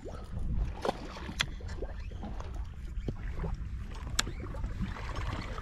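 Steady low rumble of wind on the microphone and water around a drifting boat at sea, with a few separate sharp clicks from the fishing tackle as a jig is let down.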